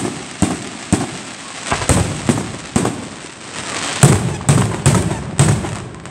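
Aerial fireworks display: shells bursting one after another, a sharp bang about every half second, with a denser stretch of crackling in the middle and the loudest bangs in the second half.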